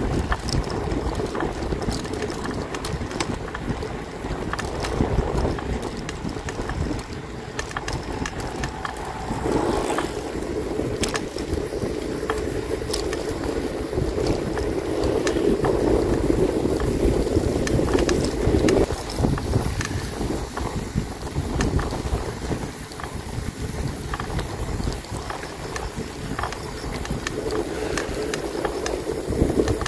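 Wind buffeting the microphone of a moving bicycle, over the rumble of tyres on the path and frequent small clicks and rattles. A louder hum sets in about ten seconds in and eases off about ten seconds later.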